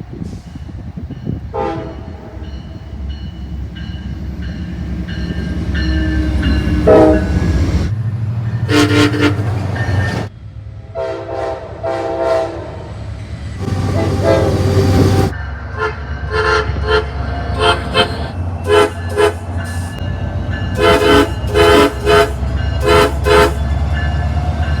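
Locomotive air horns sounding chords over the low rumble of trains. There are longer blasts at first, then a quick run of many short toots near the end.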